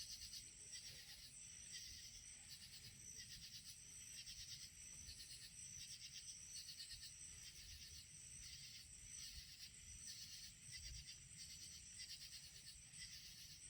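Insects chirping faintly in a steady, evenly repeating rhythm over a continuous high-pitched trill.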